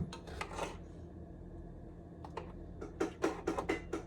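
A series of sharp clicks and taps: a few in the first second, then a quick run of about eight near the end, over a low steady hum.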